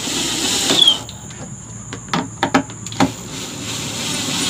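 Power drill driving screws through the speaker's rim into the wooden cabinet. It runs in a short spell at the start and again near the end, with a few sharp clicks between.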